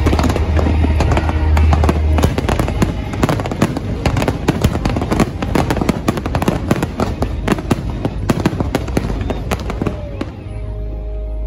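Aerial fireworks display: a dense barrage of shell bursts and rapid crackling over a deep rumble, with the show's music playing underneath. The barrage thins out about ten seconds in.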